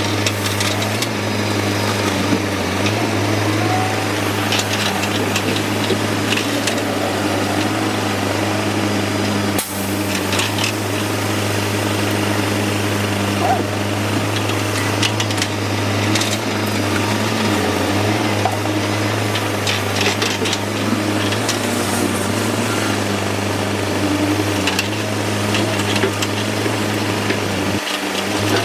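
Excavator's diesel engine running steadily under load, with scattered knocks and clanks from the machine working.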